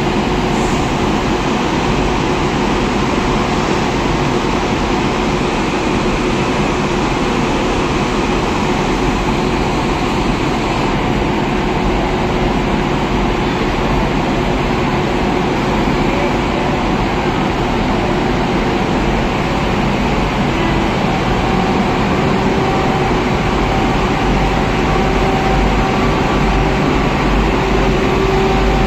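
Steady, loud whir and hum of an electric locomotive standing with its ventilation blowers running. A steady tone runs through it and grows stronger from about two-thirds of the way in.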